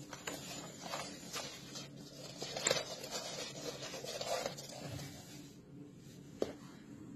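Soft scuffling with scattered light clicks and taps as a kitten plays with a fluffy toy held in a person's fingers, with no clear meow.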